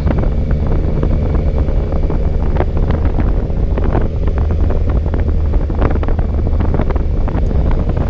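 Wind rushing over the microphone on a moving motorcycle: a loud, steady low rumble with crackling buffets throughout.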